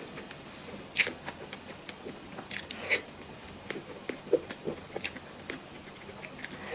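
Close-miked chewing and wet mouth sounds of someone eating a soft cream-filled bun, with irregular lip smacks and clicks, the sharpest about a second in, near three seconds and at five seconds.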